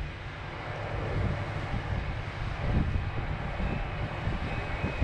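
Distant steady rumble of a submarine-launched Kalibr cruise missile's solid-fuel booster as the missile climbs away after launch, rough and low, with wind buffeting the microphone.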